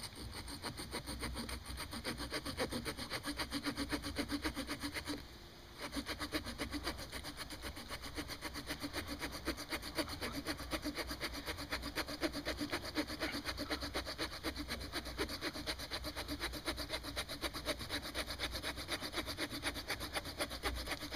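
Small pocket-knife saw blade sawing into a peeled piece of green branch wood in fast, even back-and-forth strokes, with a brief pause about five seconds in.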